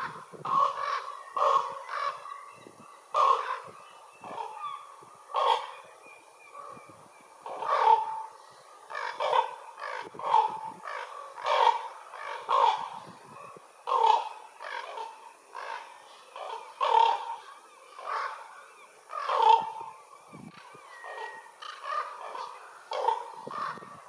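Ravens calling over and over: a long series of harsh, hoarse croaks and caws, roughly one a second with a few short pauses.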